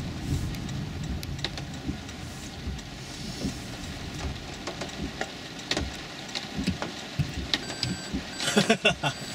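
Cabin of a Toyota Prius (50-series hybrid) creeping at low speed, with a low road rumble and light rain ticking on the body. Near the end a few short electronic beeps sound as the car is shifted into reverse.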